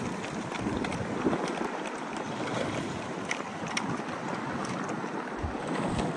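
Steady rushing of wind and water, with a few faint clicks.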